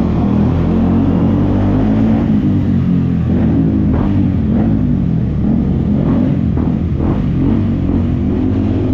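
KTM Adventure motorcycle engine running through a Yoshimura R77 full-system exhaust at low road speed. The exhaust note rises and falls a few times in the middle as the throttle is opened and eased off.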